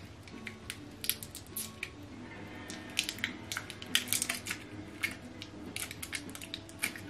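AAA batteries being handled and fiddled with in the fingers: small, irregular clicks and crinkles, coming thicker from about halfway through.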